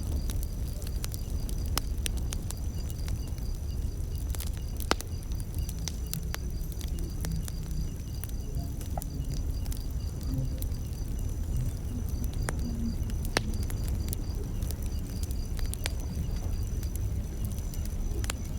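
Wood fire crackling, with irregular sharp pops and snaps over a low rumble of burning. A steady high-pitched insect trill runs behind it.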